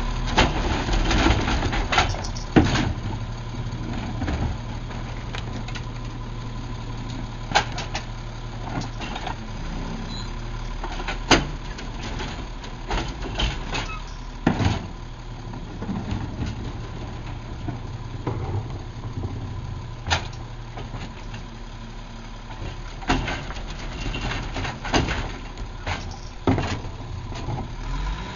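Crane Carrier Company integrated rear loader garbage truck idling steadily while wheeled plastic garbage carts are lifted and dumped into its rear hopper by the cart tipper, with about a dozen sharp bangs and clatters of the carts and lifter.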